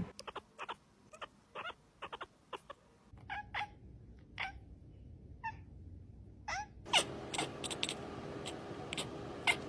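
Cats chattering and chirping: quick runs of short clicks mixed with brief chirps that slide up or down in pitch, the excited call of a cat watching prey it cannot reach.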